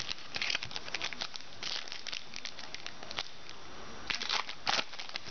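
Trading cards and their pack wrapper handled during a box break: crinkling and rustling in quick, irregular crackles, loudest about four seconds in.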